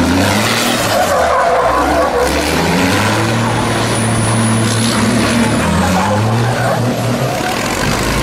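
Racing truck engine revving up and down as the truck drifts, with the noise of its tyres sliding. A thin high whistle rides over it for a couple of seconds in the middle.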